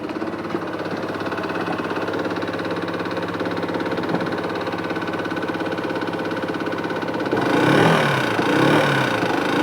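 Yamaha X-Max scooter's single-cylinder engine idling with a fast, fine ticking rattle, the small noise the owner is trying to track down. Near the end it is revved up and down about three times.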